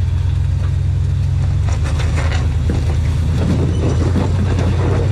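Engine of a lifted 1990 Chevy half-ton Z71 pickup on 40-inch tires, running in a steady low rumble as the truck crawls over rock. Short crackling noises come and go over the rumble from about two seconds in.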